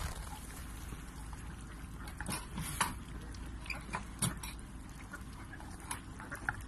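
Ducks giving a few short, scattered quacks from the water over a steady low rumble.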